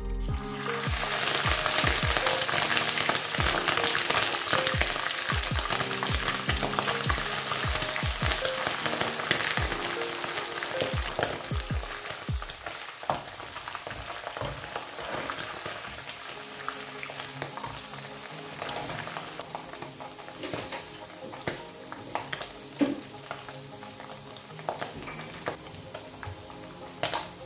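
Omena (small dried lake fish) dropped into hot oil and deep-frying in a frying pan: sizzling that starts suddenly, is loudest for about ten seconds and then eases, with crackles and the clicks of a spatula stirring.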